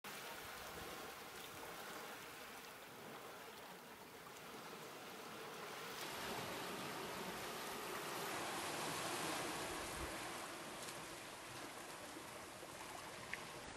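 Small sea waves washing onto a sandy beach and running back, a steady surf noise that swells about halfway through and eases off again. A short tick sounds near the end.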